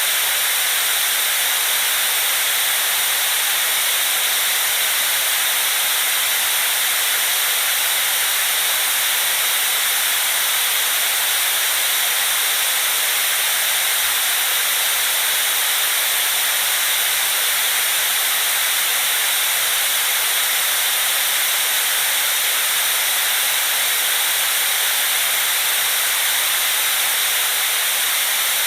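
Steady white noise: an even, unchanging hiss, strong in the high range and thin in the low end.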